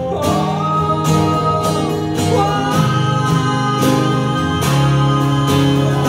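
Live acoustic band music: acoustic and electric guitars playing over a steady cajon beat, with singing carrying a held melody.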